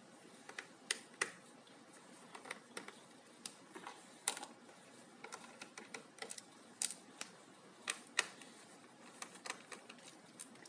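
Irregular small clicks and ticks of a screwdriver and metal screws being worked out of a laptop's case, a few sharper taps among them.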